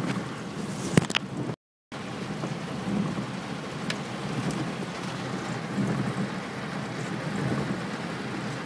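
Rain pattering on a car's windshield, heard from inside the cabin over a steady low road and engine rumble, with a few sharp ticks. The sound cuts out completely for a moment about two seconds in.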